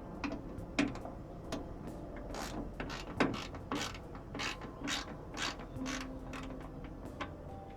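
Hand socket ratchet clicking in short bursts, about two a second through the middle stretch, as bolts are turned.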